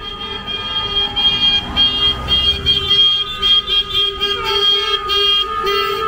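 Several car horns honking over and over in quick toots at different pitches, the celebratory honking of a passing wedding convoy.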